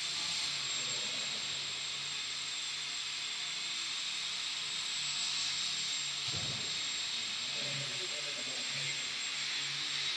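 Electric motor and propeller of an indoor control-line Gee Bee model plane running steadily in flight, a steady high-pitched sound that holds an even level.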